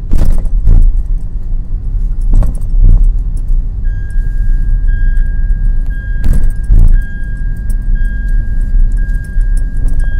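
Car driving on a concrete road, heard from inside the cabin: a steady low road rumble, with three pairs of quick thumps half a second apart as the tyres cross joints in the road. A steady high tone comes in about four seconds in.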